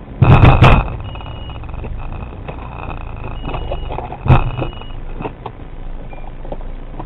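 Two loud knocks over the steady rumble of road traffic and the car's engine. The first comes just after the start and rattles for about half a second; the second is a single sharp knock about four seconds in.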